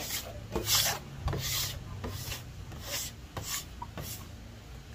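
Metal bench scraper scraping soft, sticky dough off a wooden tabletop, about half a dozen rasping strokes.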